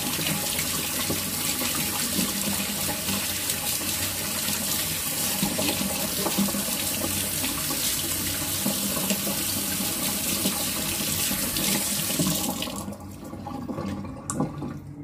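Kitchen tap running, its stream splashing over hands rinsing a skinned frog in a sink. The water cuts off abruptly about 13 seconds in, leaving a few faint wet handling clicks.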